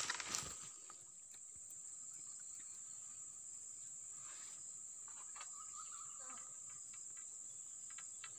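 Steady, high-pitched chirring of insects such as crickets or cicadas in swamp-side vegetation, with a brief rustle of handling at the very start.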